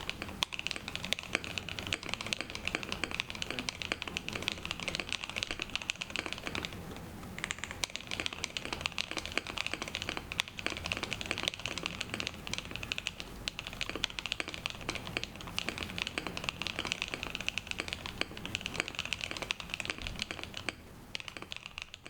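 Fast continuous typing on a Rule60 V3 custom mechanical keyboard with BSUN Taichi switches, a polycarbonate plate and MW Aschente keycaps: a dense run of key clacks, broken by brief pauses about seven seconds in, around thirteen to fourteen seconds, and near the end.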